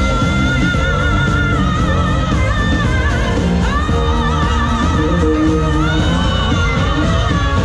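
Loud pop music with a singer holding long, wavering notes, played over a fairground ride's sound system.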